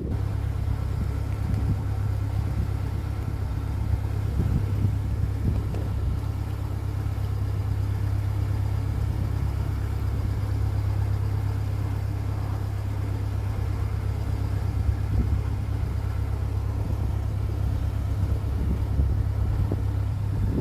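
Narrowboat's inboard engine running steadily under way, a constant low hum.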